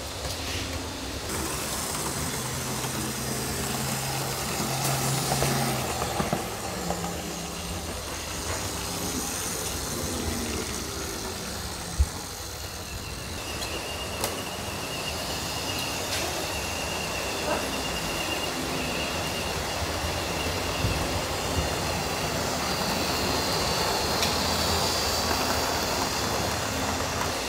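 Model electric trains running on a large layout: a steady whir and rumble of small locomotives and rolling stock on the track. A thin whine joins about halfway through, with a few light clicks and one sharp click near the middle.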